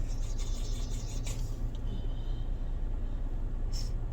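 Steady low rumble of a car's cabin, with a quick series of short hissing sniffs through the nose in the first second or so and one more short sniff near the end, as pepper is snorted to try to bring on a sneeze.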